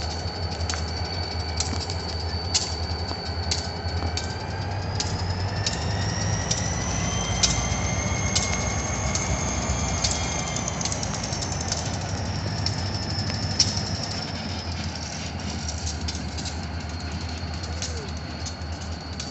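Freight train of diesel locomotives and tank cars rolling slowly past, with a steady low engine rumble and wheels clicking over rail joints about once a second. A high whine rises in pitch through the middle and falls away again.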